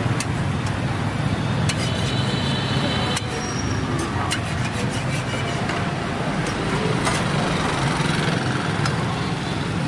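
Steady low rumble of road traffic, with a few sharp clicks of a metal spatula tapping on a flat griddle.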